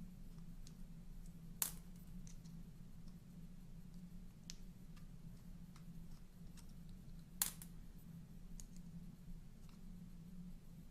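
Small tools and carburettor parts being handled on a workbench while a chainsaw carburettor is taken apart: two sharp clicks about six seconds apart and a few faint ticks, over a steady low hum.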